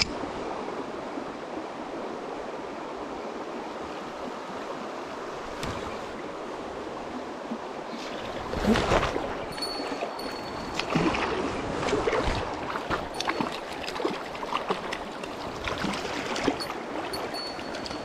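Shallow river current running steadily over a stony bed; from about eight and a half seconds in, irregular splashes and knocks in the water as a hooked fish is played in toward the landing net.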